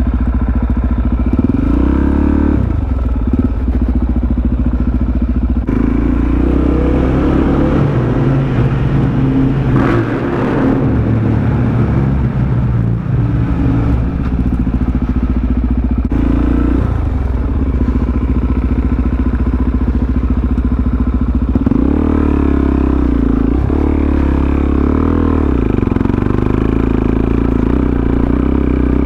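Supermoto motorcycle engine running at low speed over rough ground, its revs rising and falling several times as the throttle is worked.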